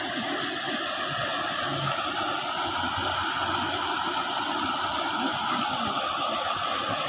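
River water rushing steadily over a low concrete weir and rocks, a constant white-water rush.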